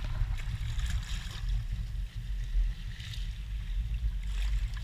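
Shallow seawater sloshing around seaweed-covered rocks under a steady low rumble, with a few brief splashes from wading.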